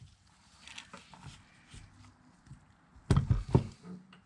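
Faint clicks and knocks from handling parts of a power-window motor while trying to pry a part free, with two or three louder sharp knocks about three seconds in.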